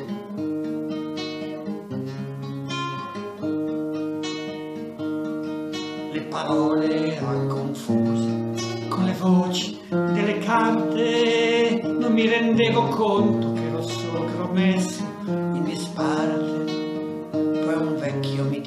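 Acoustic guitar playing chords for a singer-songwriter song; about six seconds in, a higher melody line joins and the music gets louder.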